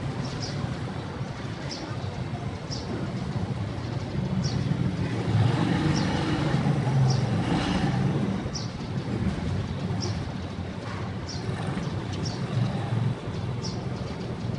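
Low rumble of a vehicle running along slowly, swelling for a few seconds in the middle, with a bird giving short high chirps about once a second.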